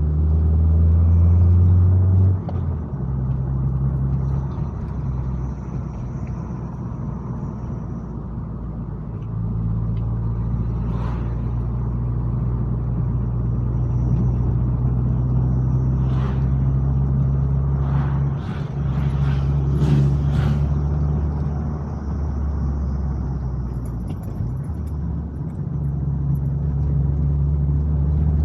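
Car engine and tyre noise while climbing a hill: a steady low drone whose pitch drops and comes back several times as the load or gear changes, with a few brief ticks about halfway through.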